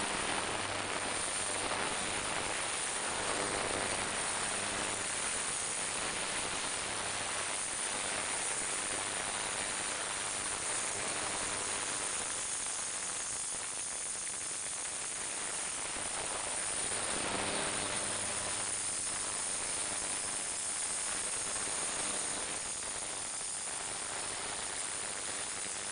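Ultrasonic cleaner running, its water bath cavitating: a steady hiss with a faint low hum underneath.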